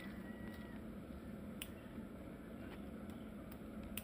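Hand scissors snipping bitter gourd stems: a few sharp clicks against a faint background, the loudest near the end.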